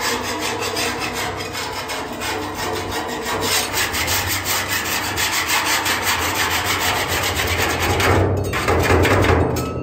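Continuous rapid scraping against a hard surface, a little louder for a couple of seconds near the end.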